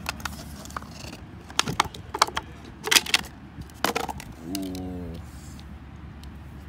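Cardboard tube packaging and new scooter wheels being handled: a series of sharp clicks and knocks as the wheels are taken out of their tubes. A brief low hum that falls slightly comes about four and a half seconds in.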